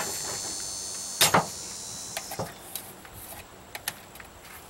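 Handling noise of electrical wire being tied and pulled: one louder rustling knock about a second in, then a few scattered light clicks and ticks.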